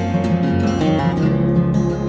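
Background music: strummed and plucked acoustic guitar with sustained notes.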